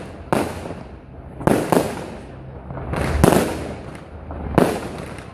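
Fireworks display: fireworks bursting in sharp bangs, about five at uneven intervals, each trailing off in a short echo, the loudest a little past three seconds in.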